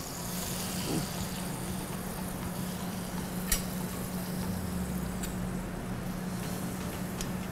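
Metal tongs clicking against a metal sheet pan as a baked stuffed pepper is lifted off it: one sharp click in the middle and a couple of fainter ones later. Under them runs a steady low hum and hiss of kitchen equipment.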